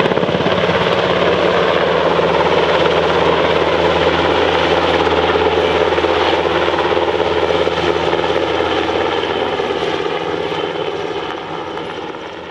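NH90 military helicopter flying, its twin turbine engines and rotor making a steady, loud beating chop. It grows fainter near the end.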